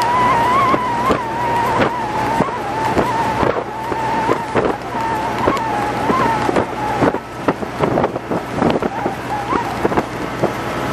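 Small fishing boat running under way: the engine drones with a high whine that wavers in pitch and fades out near the end, while the hull knocks and splashes against the waves again and again.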